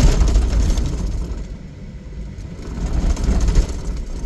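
A vehicle driving a muddy off-road trail, its engine and tyres making a heavy low rumble with rattling on top. The sound eases about two seconds in and builds again near the end.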